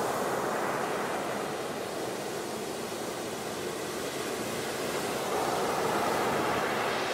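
Ocean surf breaking on a pebble beach: a steady wash of waves that swells about five seconds in.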